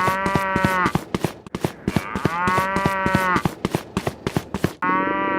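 Cow mooing: two long moos and the start of a third near the end, over a rapid, steady run of clicks.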